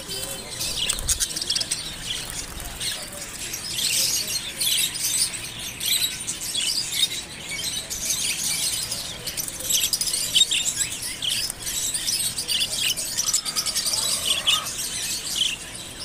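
Many caged budgerigars chirping and chattering together: a dense, unbroken stream of quick, high chirps.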